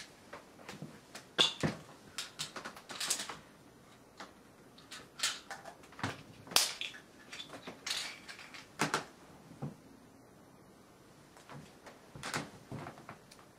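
Close handling noises of small objects: an irregular run of sharp clicks, crinkles and light knocks, loudest about a second and a half in and again about six and a half seconds in, with a short lull near two-thirds of the way through.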